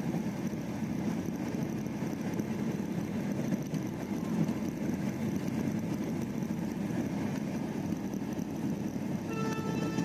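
Steady rumble of a moving passenger train heard from inside a closed air-conditioned coach. Near the end a train horn starts sounding one long, steady note.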